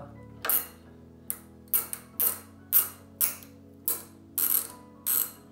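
Brembo clutch lever and its cable fitting being worked by hand at the handlebar perch: about ten short metallic clicks and rattles at an uneven pace.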